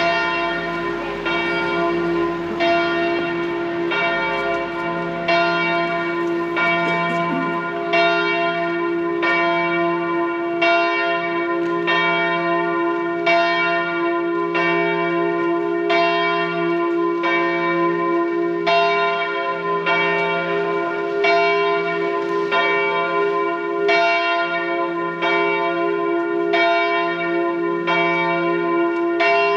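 Church bells of the Augustinerkirche tower ringing. Strokes come evenly, a little faster than one a second, over a steady humming low note that keeps sounding between them.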